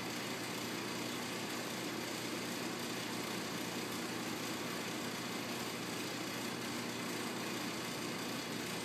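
A steady mechanical hum, an even drone with hiss that does not change.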